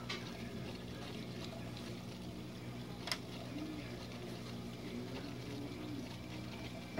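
Aquarium water circulation: a steady low hum with trickling water, and a single sharp click about three seconds in.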